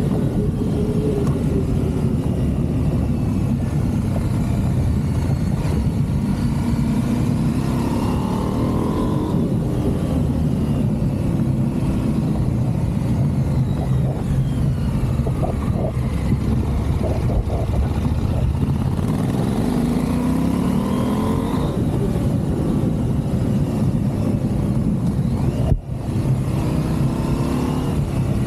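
Motorcycle engine under way, its pitch rising and falling several times as the rider speeds up and eases off, over a steady low rumble.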